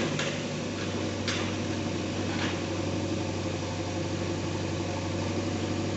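Bulldozer's diesel engine running steadily, with a couple of faint clicks in the first few seconds.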